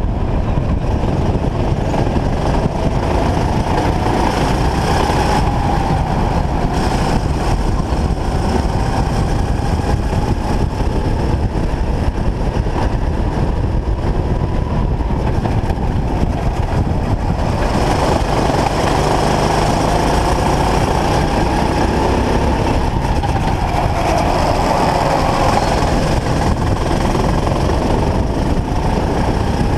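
Go-kart engine running hard at racing pace, its pitch rising and falling as the kart accelerates out of corners and slows into them, over a heavy rumble of wind on the microphone.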